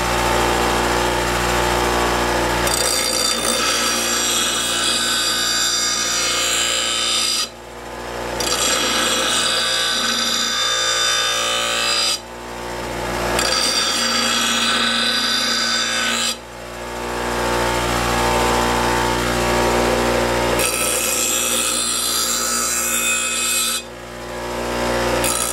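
Delta 6-inch bench grinder running, then the steel edge of a dull, nicked lawnmower blade ground against the wheel to sharpen it: a loud, harsh grinding noise over the motor's steady hum. The grinding goes on in several long passes, broken by four short pauses.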